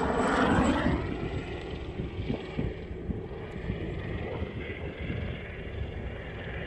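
Helicopter passing overhead, its rotor and engine noise falling in pitch and fading away about a second in, leaving a quieter low rumble.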